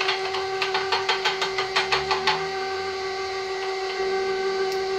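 KitchenAid stand mixer running its meat grinder attachment: a steady electric motor whine. For about the first two seconds there is a quick run of sharp clicks, several a second, over it; then the whine runs on alone.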